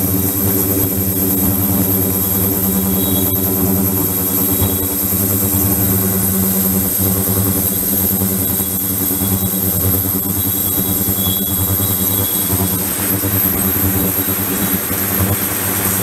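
Ultrasonic cleaning tank running while a small pump circulates water into it. There is a steady electrical buzz with water rushing and churning underneath, unchanged throughout.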